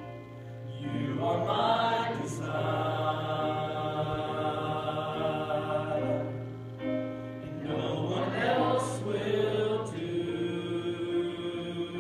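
Choir singing held chords, swelling about a second in and again around eight seconds in, over a steady low hum.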